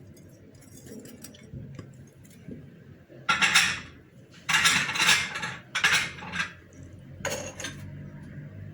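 Metal spoons clinking and scraping against a pressure-cooker pot as spices are spooned in, in four short bursts during the second half.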